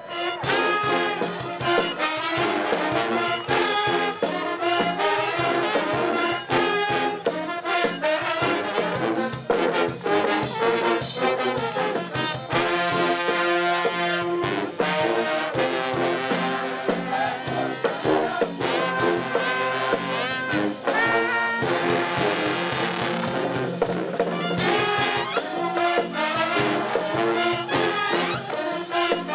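College pep band playing, led by trombones and trumpets, with a steady driving beat.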